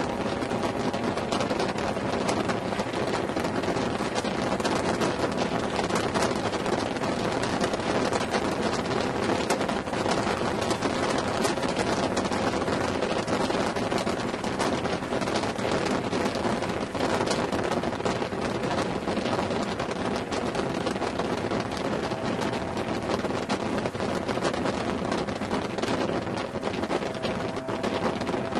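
A car driven at speed on a track: its engine running steadily, buried under heavy wind rush buffeting the microphone, with road noise.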